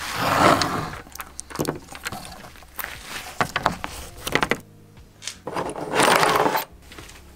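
Scraping and knocking as a solar panel is set down on wooden beams and sheets of cardboard are laid over it. After a sudden break, plastic solar cable connectors scrape and rattle across a wooden table.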